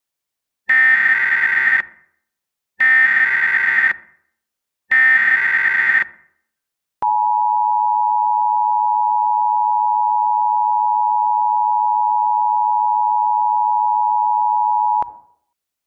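Emergency Alert System SAME header: three screeching digital data bursts about a second each, then the EAS two-tone attention signal (853 and 960 Hz together) held steady for about eight seconds before cutting off. It marks the start of an emergency alert.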